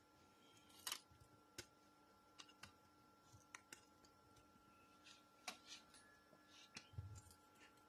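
Near silence with faint, scattered clicks and a few soft knocks from a MacBook's aluminium display assembly being handled and worked loose at the hinges on a workbench.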